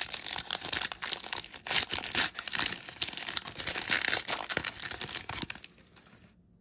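Foil wrapper of a 2017 Panini Diamond Kings baseball card pack being torn open and crinkled in the hands: a dense crackling that stops about five and a half seconds in.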